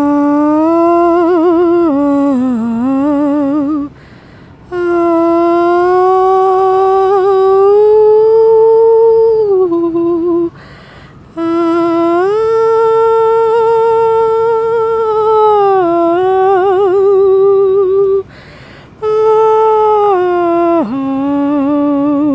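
A lone female voice humming a slow, wordless melody in long held notes with a wavering vibrato and slow slides in pitch, breaking off briefly three times between phrases.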